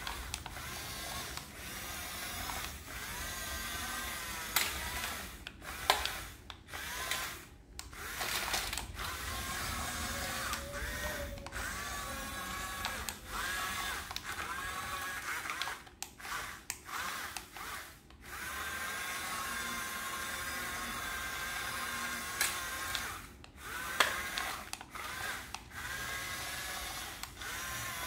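Small electric gear motors of toy remote-control excavators whirring as the arms, buckets and tracks move, running in stop-start spells with short pauses between them and a few sharp clicks.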